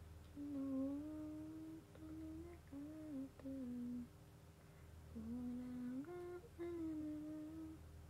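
A woman humming a tune to herself in two short phrases, with about a second's pause between them.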